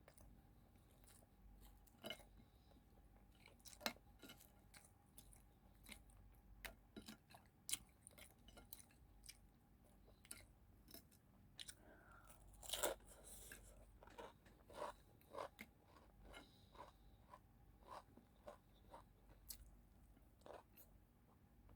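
Close-up eating sounds: a person chewing food with a steady run of short crisp crunches, about one or two a second, the loudest crunch about halfway through.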